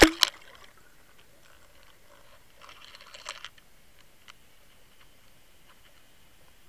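Underwater clicks and knocks picked up by a Water Wolf fishing-line camera being drawn through the water: one loud knock at the start, a crackle of clicks about three seconds in, then scattered faint ticks over a faint steady high whine.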